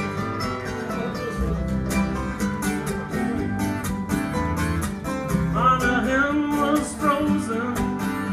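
Live acoustic folk band playing a song's opening: strummed guitars and mandolins over an upright bass, with a sliding melody line coming in over them about five and a half seconds in.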